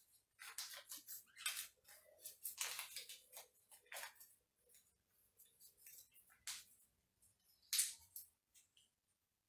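A small folded paper slip being unfolded by hand: faint, irregular crinkling and rustling of paper, with one louder crinkle near the end.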